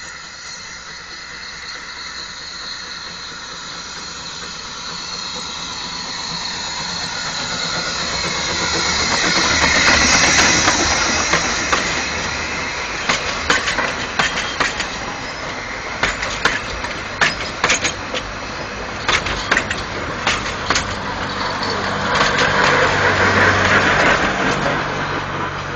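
Perry narrow-gauge steam locomotive approaching with hissing steam, growing louder until it passes close by about ten seconds in. Its wooden carriages follow, their wheels clicking sharply over the rail joints, and the train noise swells again near the end.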